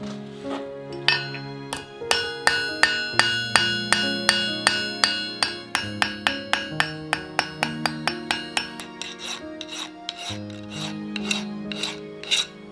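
A hammer tapping small copper pieces on a steel anvil: an even run of light, ringing metallic taps, about two or three a second, which stop a little after halfway. Soft background music plays underneath.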